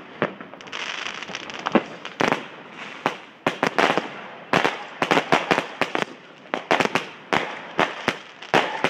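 New Year's Eve fireworks: many sharp firework bangs at irregular intervals, coming thick and fast from about three seconds in, with a hissing crackle during the first couple of seconds.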